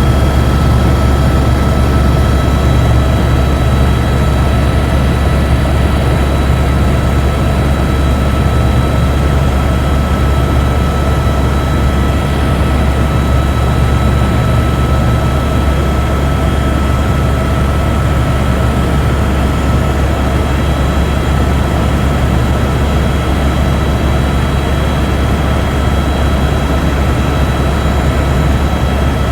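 Helicopter in flight, heard from inside the cabin: a loud, steady drone of the rotor and engine with several steady high whining tones above it.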